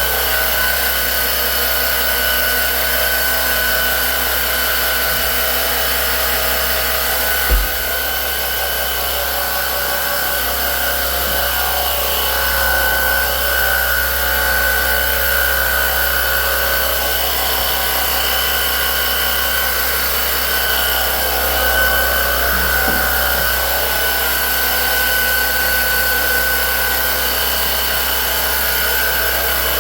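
A motorised cleaning machine running steadily, with a constant high whine over a hiss. There is one short knock about seven and a half seconds in.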